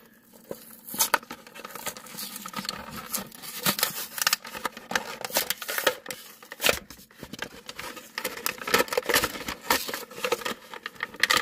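Stiff clear plastic toy-car packaging being handled and pried open, with irregular crinkles, clicks and crackles throughout.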